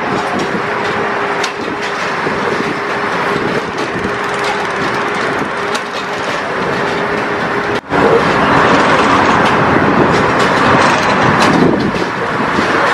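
Heavy track-laying machinery running steadily with a constant hum. About eight seconds in it cuts to a louder, denser machine noise.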